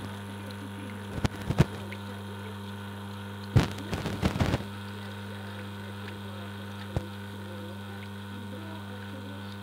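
Steady low electrical mains hum from the reverse osmosis test bench, broken by a few clicks and clattering handling knocks about a second in and again around the middle, and one sharp click about seven seconds in.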